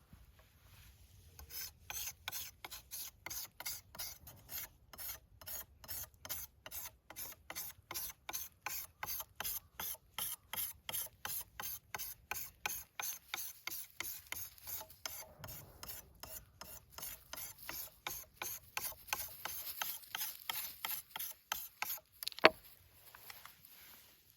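A nata (Japanese hatchet) blade being sharpened by hand, stroked back and forth across a sharpening stone at about two to three strokes a second. The strokes stop shortly before one sharp knock near the end.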